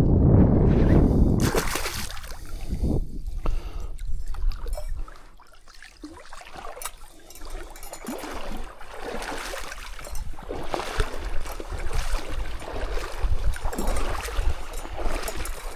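Water splashing and trickling at the bank's edge while a small pike is handled, with irregular sloshes and drips. A loud low rumble in the first second and a half.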